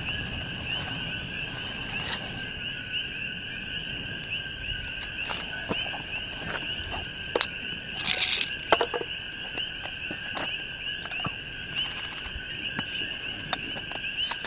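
A dense chorus of calling frogs, likely coqui frogs, two steady high-pitched bands of repeated chirps, with scattered sharp crackles and clicks throughout and a brief louder rush of noise about eight seconds in.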